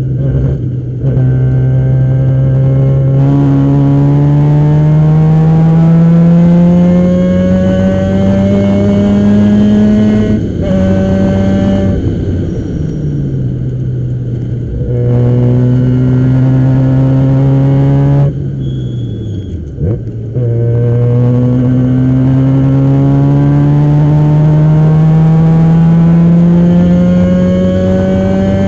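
Formula Mazda race car's two-rotor Mazda rotary engine driven hard on track. Its pitch climbs slowly under throttle, eases back briefly about ten seconds in, and falls away sharply with a momentary dip in level around the eighteen-to-twenty-second mark. It then picks up and climbs steadily again to the end.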